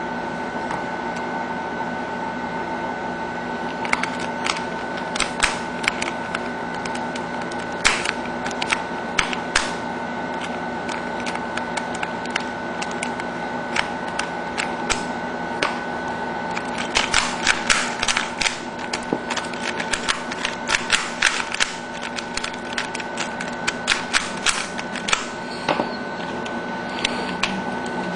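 Plastic twisty puzzles being turned fast by hand: the layers of a 3x3 Rubik's cube, then a 2x2 cube and a pyraminx, click and clack in quick irregular runs. The clicks begin a few seconds in and are thickest a little past the middle. A steady high hum runs underneath.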